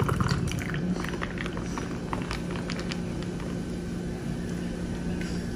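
Milkis, a carbonated milk soda, poured from a can over ice into a glass: the liquid pours and fizzes, with small crackles through the first few seconds, over a steady low hum.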